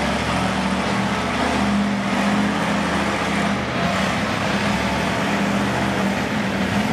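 A motor vehicle engine running steadily, heard as a constant low hum over a noisy background.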